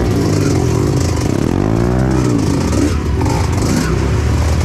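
Trail motorcycle engine running loud under throttle, its revs climbing and dropping back around the middle.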